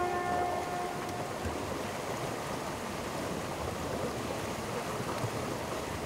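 Water rushing and churning steadily alongside a moving boat's hull in its wake. A held trumpet note from the serenade just before dies away in the first second and a half.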